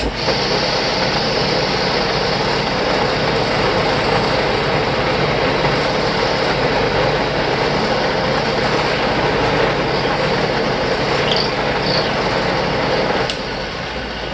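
Drill press running with its bit boring a pilot hole into a hard maple bowl blank for a screw chuck, a loud steady machine noise that starts suddenly and drops in level near the end.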